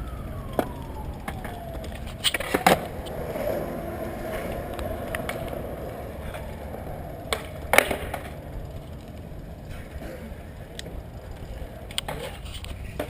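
Skateboards rolling on concrete at a skate park, with a few sharp clacks of boards hitting the ground spread through.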